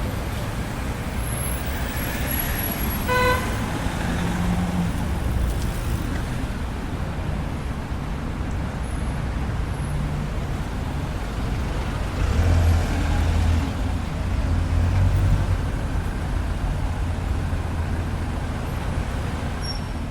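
Street traffic: steady road noise of passing cars. A short horn toot comes about three seconds in, and a louder engine rumble of a passing vehicle comes in the middle of the clip.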